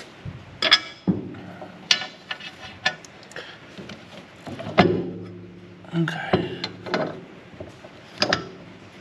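Metal clinks and knocks from a steel bolt, lock washer and hand tools being handled and worked into a mower deck's drive shaft coupling: about nine separate sharp hits, some ringing briefly.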